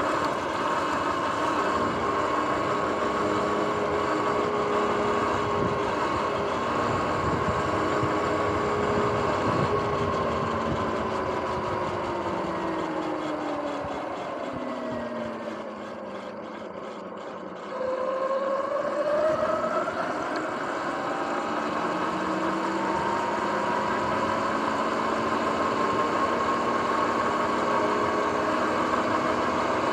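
Sur-Ron X electric dirt bike's motor whining under wind and tyre rush. The whine falls in pitch from about ten seconds in as the bike slows toward a road crossing. It climbs again from about eighteen seconds in as the bike accelerates away.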